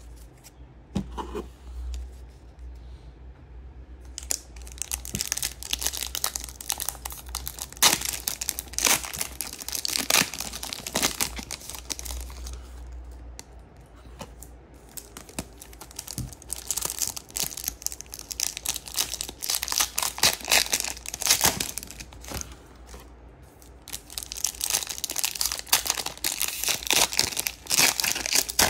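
Foil Topps Chrome card pack wrappers being torn open and crinkled, in three bouts of crackling with short pauses between, over a low steady hum.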